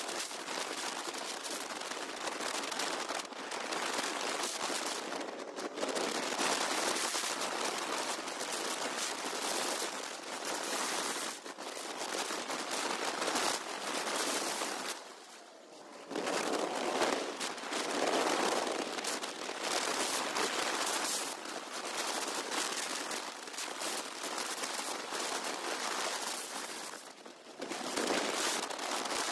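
Wind buffeting a motorcycle rider's microphone while riding: a dense, crackling rush of noise that drops away briefly twice.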